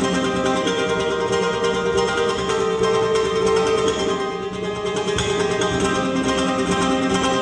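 Solo ukulele played fast, with rapid strumming and picked melody notes.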